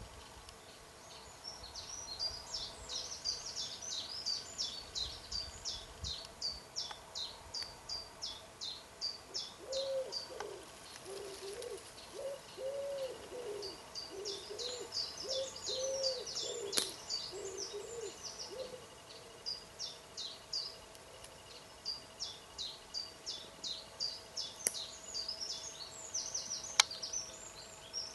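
Woodland birdsong: a small songbird repeats rapid, high phrases over and over, and through the middle a pigeon coos in a low, repeated phrase. A sharp click sounds near the end.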